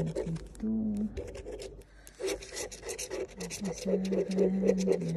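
The edge of a plastic card scraping the latex coating off an instant scratch lottery ticket in rapid back-and-forth strokes. The strokes pause briefly about two seconds in, then resume.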